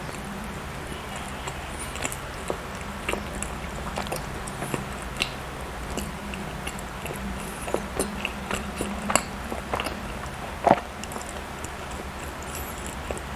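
Close-miked chewing and mouth sounds of a person eating soft bread or cake: scattered wet smacks and clicks, the loudest about ten and a half seconds in, over a steady low hum.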